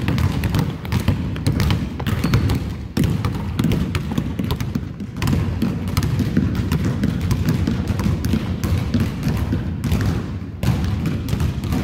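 Several basketballs being dribbled at once on a hardwood gym floor: a dense, irregular run of overlapping bounces.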